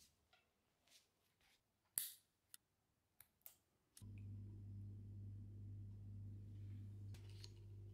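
A few faint, sharp metal clicks from handling the braided hose fitting at a Hope brake lever, the loudest about two seconds in. About halfway through, a steady low hum starts.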